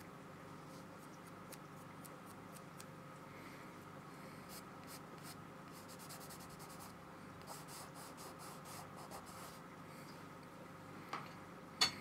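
Paintbrush dabbing and stroking gouache on paper: a run of faint, light scratchy ticks over a low steady hum, with two sharper taps near the end.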